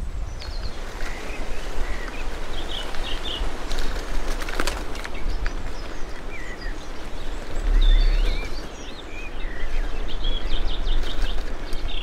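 Riding a bicycle on a dirt path: a steady rumble of wind and tyre noise, with small birds chirping and twittering throughout.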